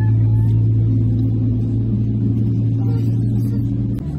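Steady low hum in the cabin of an Airbus A321 on the ground, from its engines and air system running. About four seconds in there is a click and the hum shifts abruptly.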